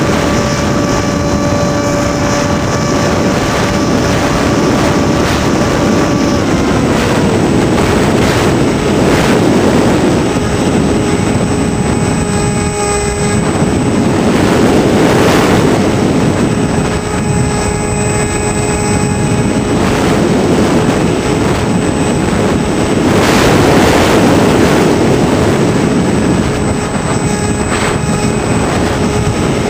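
Hawk Sky RC trainer plane in flight, heard from on board: its electric motor and propeller whine steadily under rushing wind on the microphone. About six seconds in the whine drops to a lower steady note, then holds.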